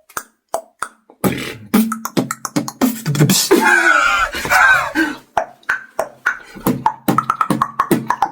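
Beatboxed horse sound effect: sparse clicking clops, then denser mouth percussion with a wavering vocal passage in the middle, settling into a regular rhythmic beat in the last couple of seconds.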